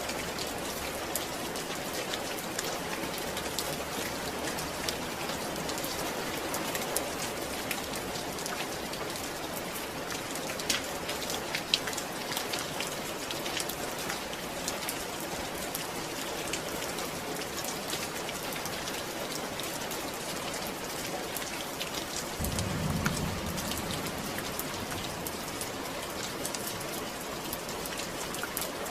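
Steady rain falling on a surface, a dense even hiss full of individual drop ticks. A brief low rumble comes about two-thirds of the way through.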